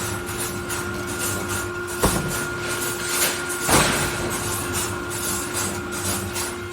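Steel rebar mesh welding machine running, with a steady hum and two sharp metal clanks, about two seconds in and again near four seconds.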